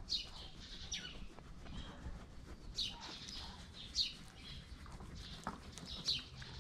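Birds chirping: short high calls that sweep downward, about five of them at intervals of one to two seconds, over a faint outdoor background.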